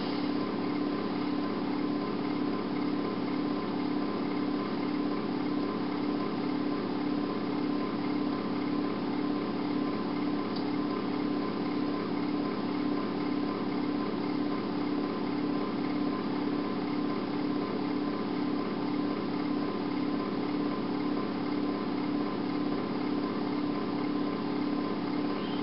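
A steady, unchanging mechanical hum: a strong low drone with a fine fast flutter, a thin steady whine above it, and a haze of hiss.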